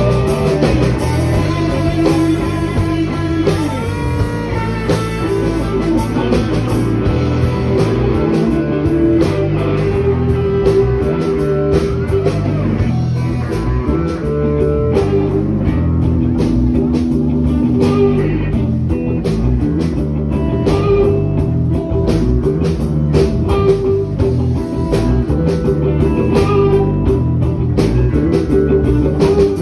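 Live blues band playing an instrumental stretch: amplified electric lead guitar with held, bending notes over bass guitar and drums, loud and steady throughout.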